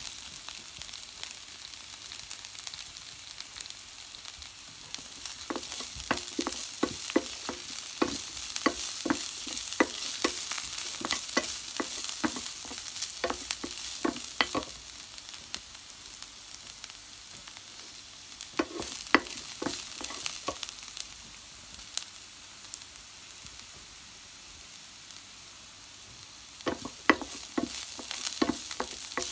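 Chopped garlic and ginger sizzling in hot oil in a metal frying pan, with a wooden spoon knocking and scraping against the pan in three spells of stirring: a long one from about six seconds in, a short one around twenty seconds, and another near the end.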